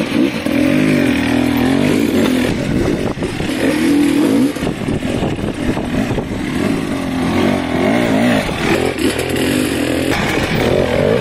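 Dirt bike engine revving up and down over and over as the bike is ridden up a steep, rutted slope, its pitch rising and falling with the throttle.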